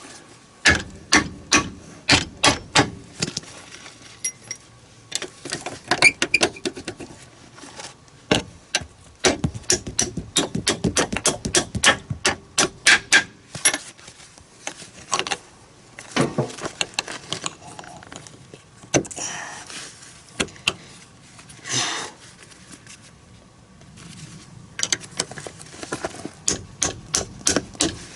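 Hand tools working the joint bolts of a snowcat's rubber crawler track: runs of sharp metallic clicks and knocks, several a second, broken by short pauses.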